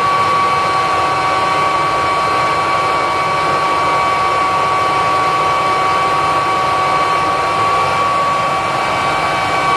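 Kirby upright vacuum cleaner's motor and fan running at full speed, a steady high whine over rushing air, as it pulls air through a sealed airflow test box. It is running with only the outer bag of a shakeout-bag-to-HEPA conversion fitted.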